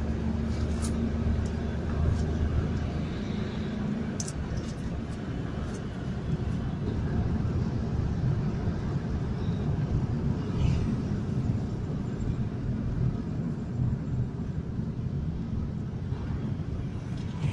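Moving car's road and engine rumble heard from inside the cabin, with a steady low hum over the first few seconds.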